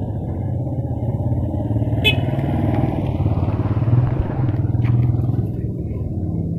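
A motor engine running steadily, a loud low hum, with a sharp click about two seconds in and a fainter one near five seconds.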